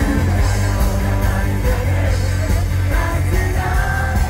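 A live band playing loud rock-style music with singing, heavy bass and a steady drum beat.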